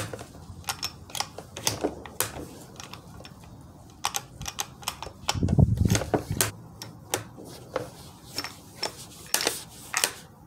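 Irregular metallic clicks and clacks from the action of a Ruger American .308 bolt-action rifle as a soft-nose cartridge is single-fed into it by hand, the round nose-diving and getting stuck. A dull low thump about five and a half seconds in.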